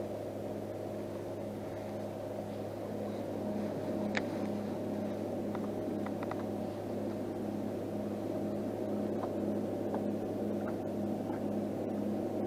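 Small electric trolling motor running with a steady hum that pulses about twice a second, with a few faint clicks over it.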